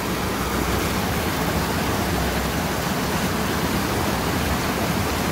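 Steady rush of a small, fast-flowing stream, an even noise with no breaks.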